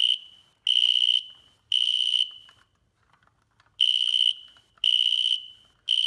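Fire alarm horn-strobe horn sounding in the temporal-3 evacuation pattern: three half-second blasts of a steady high tone about a second apart, a pause, then three more. It keeps going because the BG-10 pull station that set it off is still latched in alarm, not yet reset.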